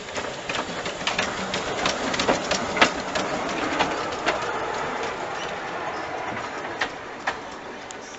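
Narrow-gauge steam locomotive and tender running past close by: a rushing clatter full of irregular sharp clicks from the wheels and running gear, loudest about three seconds in and then fading as it moves away.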